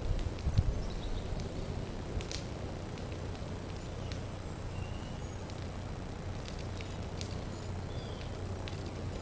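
Burning thatch smouldering with occasional sharp crackles over a low steady rumble, with a few thumps about half a second in.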